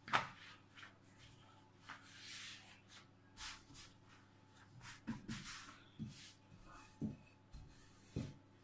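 Pizza dough slapped down onto a silicone pastry mat with a sharp knock at the start, then floury hands pressing and rubbing it flat. From about halfway through, a wooden rolling pin rolls the dough out, with soft thumps about once a second.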